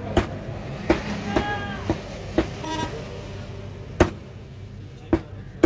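A heavy butcher's knife knocks against a wooden chopping block while chicken breast is cut, about seven sharp knocks at uneven intervals. Two short vehicle-horn toots sound in the background, about a second and a half in and again near the three-second mark.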